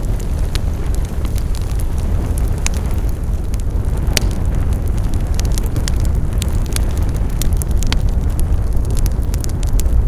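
Wood fire crackling: frequent irregular sharp pops and snaps over a steady low rumble of the flames, with one louder pop about four seconds in.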